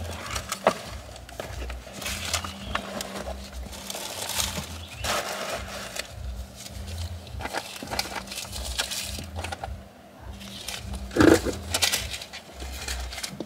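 Handling noise of small items being sorted and picked up off a car seat: irregular rustling and light clicks and knocks, with one louder knock about eleven seconds in.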